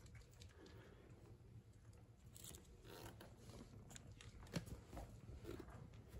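Near silence: room tone with a few faint, scattered clicks and rustles.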